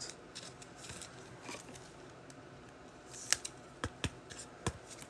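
Faint handling of trading cards being slid and flipped over, a soft rustle with a few sharp clicks in the second half.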